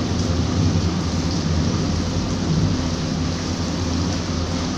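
Rain falling steadily: an even hiss with a continuous low rumble underneath.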